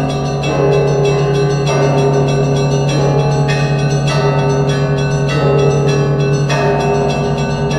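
Church bells ringing: several bells of different pitch struck in a repeating pattern, a fresh stroke about every second, each ringing on over a deep steady hum.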